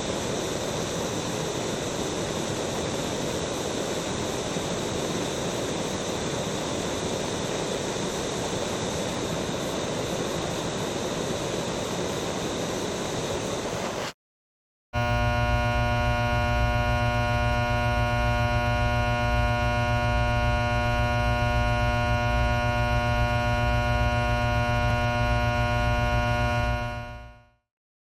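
Two machine sound effects. First a steady rushing noise for about fourteen seconds, then it stops abruptly. After a short silence comes a steady electric buzzing hum, which fades out near the end.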